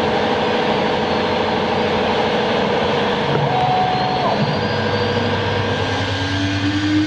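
Stone CNC router running: a steady mechanical whine over dense noise, with a second tone rising in pitch over the last second or so.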